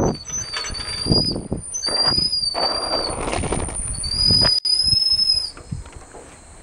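Bicycle brakes squealing as the bike slows to a stop: several drawn-out, high-pitched squeals that die away about a second before the end, over a low rumble of wind and rolling.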